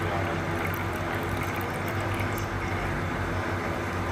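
Sake poured in a steady stream from a bottle into a square masu cup, filling and frothing, over a steady low hum.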